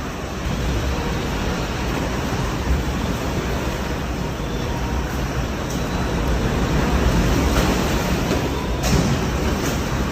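Strong typhoon wind blowing, a steady rushing noise with a low rumble from gusts buffeting the microphone. A short sharp knock comes near the end.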